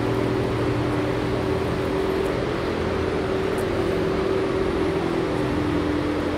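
Large ventilation fan running: a steady hum with a few even tones over a rush of moving air.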